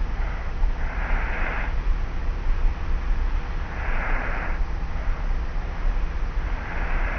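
Light, breathy snoring of a sleeper lying on their back, a soft snore about every three seconds, three in all, over a steady low hum and hiss from a cassette tape recorder.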